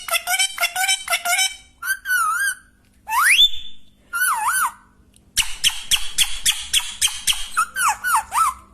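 Pet parrot vocalising: runs of rapid, repeated chattering notes alternating with wavering, warbling whistles, and one quick rising whistle about three seconds in.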